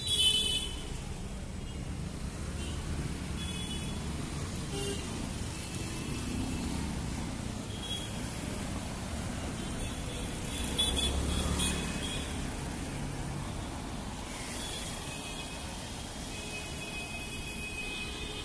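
City street traffic: a steady rumble of passing cars with horn toots. The loudest toot is at the very start and another comes about eleven seconds in.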